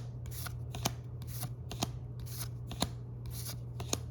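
Pokémon trading cards from a booster pack being flipped through one at a time: each card slides off the stack with a short swish and a light tap, about two a second.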